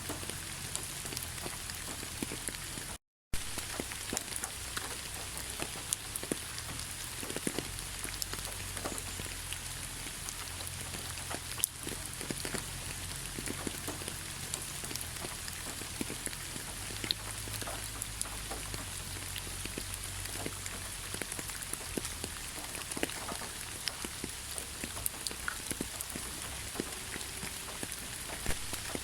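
Heavy rain falling steadily: an even hiss with many individual drops ticking on surfaces. About three seconds in the sound cuts out completely for a moment, then resumes.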